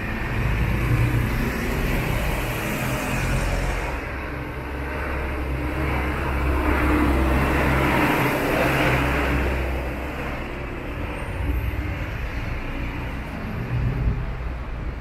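Road traffic: vehicle engines running, growing louder as a vehicle passes close about seven seconds in.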